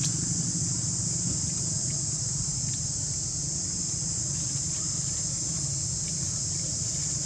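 A steady, high-pitched insect chorus drones without a break over a steady low rumble, with a few faint ticks.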